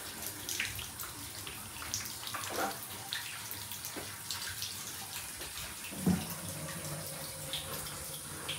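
Water running and splashing, with scattered small splashes and knocks.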